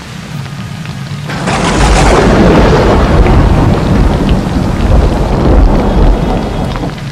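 Steady rain falling; about a second in, a loud clap of thunder breaks out and rolls on for several seconds before fading.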